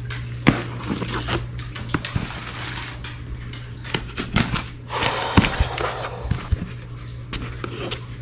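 Knife slitting the packing tape on a cardboard shipping box, then the cardboard flaps pulled open, a run of scrapes, clicks and rustles with the busiest stretch about five seconds in. A steady low hum runs underneath.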